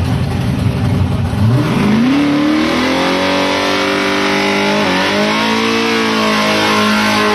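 Fox-body Ford Mustang drag car doing a burnout: its engine goes from a rough, lopey idle to a rising rev about a second and a half in, then holds at high revs, with a brief dip about five seconds in, while the rear tyres spin and smoke.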